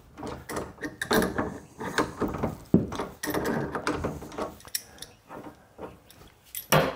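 Metal hand tools clicking and clinking as pliers squeeze and shift a spring hose clamp on a freeze dryer's brass drain valve fitting. The clicks come irregularly, several a second, with a louder clatter near the end.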